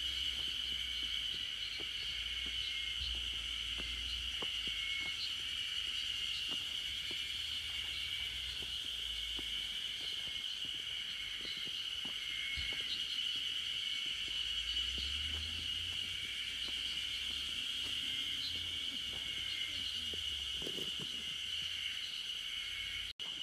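Steady chorus of insects in the forest canopy, one continuous high-pitched drone that holds the same pitch throughout.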